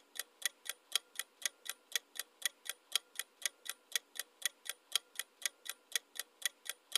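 Clock-ticking sound effect marking a quiz countdown timer: a steady tick-tock of about four ticks a second, alternating louder and softer ticks.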